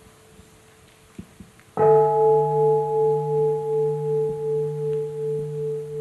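A large meditation bowl bell, the bell of mindfulness, struck once about two seconds in and ringing on with a slow waver in its loudness. The fading tail of an earlier stroke and two faint clicks come before it.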